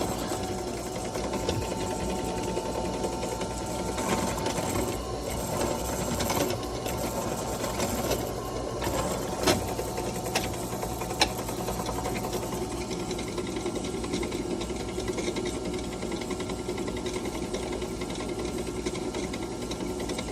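Cheap Harbor Freight benchtop drill press running steadily at its slowest speed, 750 RPM, with a crimp finisher in the chuck. Two sharp clicks come a little under halfway through.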